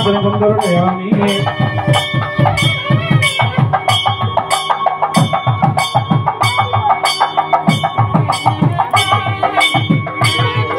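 Music with a steady percussion beat and held melody notes.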